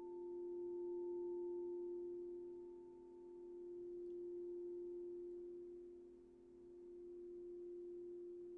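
Crystal singing bowl ringing on a steady, pure tone with a few overtones, swelling and fading in a slow pulse about three times.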